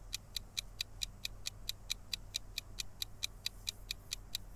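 Countdown-timer sound effect: a steady run of quick, even ticks, about four to five a second.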